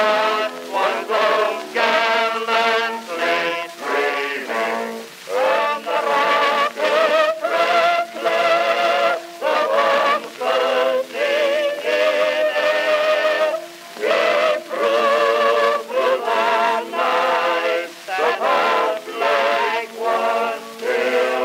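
Background music of sung, chant-like voices holding long, wavering notes in phrases broken by short pauses.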